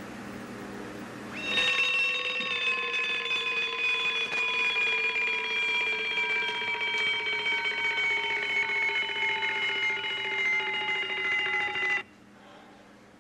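Bedside alarm clock bell ringing steadily for about ten seconds, its pitch slowly sagging. It cuts off suddenly near the end as the sleeper reaches over and shuts it off.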